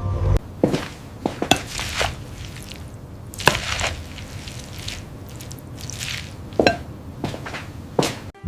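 A string of irregular sharp knocks and cracks, with brief rustling swishes between them.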